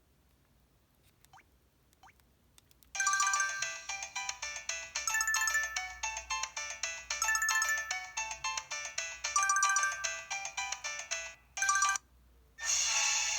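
EVER EV-W420 mobile phone playing a polyphonic ringtone melody through its small speaker, starting about three seconds in after a few faint clicks. The melody breaks off near the end, a short snatch sounds, and after a brief pause a different tune begins.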